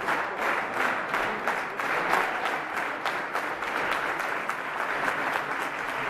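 Crowd clapping in unison in a steady rhythm of about three claps a second, over a general wash of applause.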